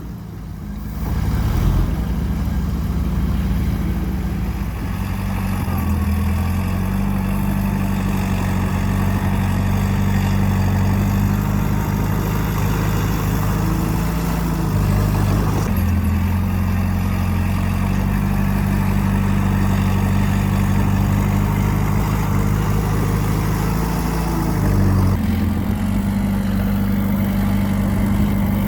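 Bulldozer's diesel engine running steadily as it works, its pitch dropping and rising a few times.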